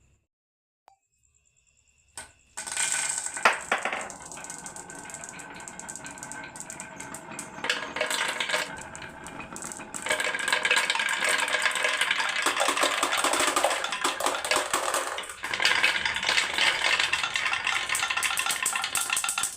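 Marbles rolling and clattering down a wooden HABA marble run: a dense stream of clicks and rattles that starts a couple of seconds in and gets louder about halfway through.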